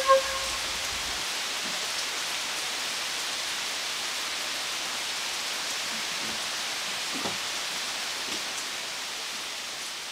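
Steady rain falling, an even hiss with a few scattered drip ticks, slowly getting quieter toward the end. A held flute note dies away in the first half second.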